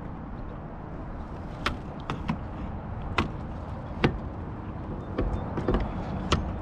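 Scattered sharp knocks and clicks, about eight in a few seconds and loudest about 4 s in, from a wire-mesh crab trap and gear being handled on a plastic kayak as a blue crab is taken out. Under them runs a steady low rumble.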